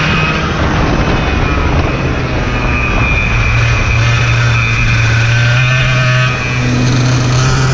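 Racing kart engine running hard at a steady high pitch over wind and road noise on the onboard camera. The engine note dips briefly about six seconds in, then picks up again.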